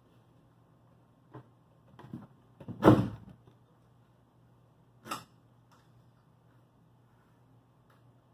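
Okoume plywood bulkhead knocking and scraping against the skiff's plywood bottom panel as it is shifted into place: a few light knocks, one louder bump about three seconds in and another a couple of seconds later, over a faint steady low hum.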